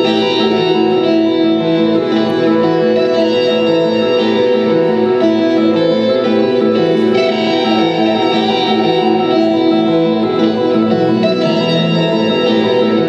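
Solo electric guitar music: several notes held and layered over one another with an organ-like sustain, over a quick even pulse of about four beats a second low down.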